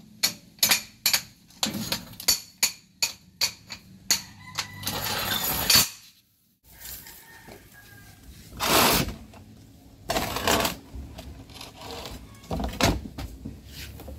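Hand tools clinking and knocking on metal: a quick run of sharp metallic taps over the first few seconds, then a short rushing hiss, a brief gap, and scattered clinks and rustles.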